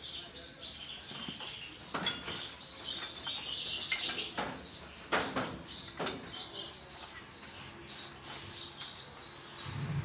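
Sparrow chicks giving thin, high begging cheeps over and over while being fed at the nest. A few sharp clicks and rustles from the dry-grass nest come in between.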